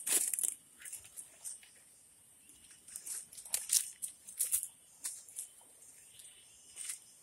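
Footsteps crunching and rustling through dry leaf litter on a steep forest path, in uneven steps. The loudest crunch comes right at the start, with another cluster about halfway through.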